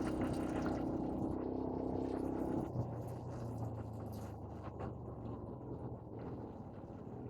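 A vehicle engine running with a steady hum. About two and a half seconds in, its note drops to a lower steady hum.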